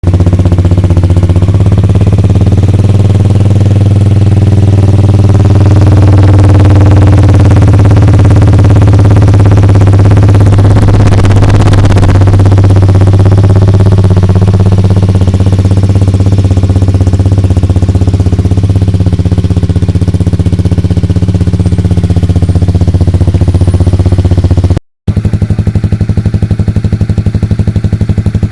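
Honda CB300R's single-cylinder engine running steadily through an aftermarket slip-on exhaust, with a brief louder, rougher stretch about 11 seconds in. About 25 seconds in the sound cuts off abruptly and resumes as a steady, evenly pulsing idle.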